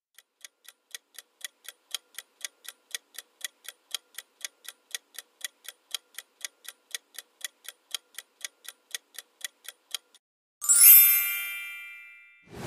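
Countdown-timer sound effect: clock ticking, about four ticks a second, for some ten seconds. It stops, and a bright chime rings out and fades, signalling the answer reveal.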